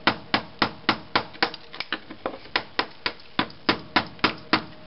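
Hammer striking the back of a hand chisel in quick, even blows, about three or four a second, the chisel chipping old thinset mortar off the floor where a tile was removed. The blows stop shortly before the end.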